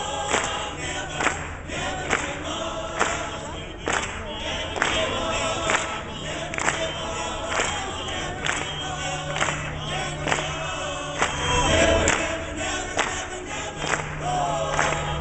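Men's chorus singing in full voice with the crowd clapping steadily along on the beat, about two claps a second, heard through a small camera microphone.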